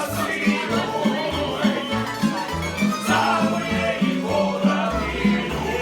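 Croatian tamburitza band playing a lively folk tune: plucked tamburas carry the melody over a steady, pulsing bass line.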